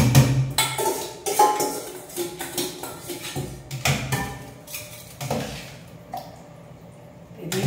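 A steel spoon clinking and scraping against a stainless steel vessel as cooked vermicelli is mixed with curd, with a series of sharp metal knocks, one of them the steel curd pot set down on the stone counter about four seconds in.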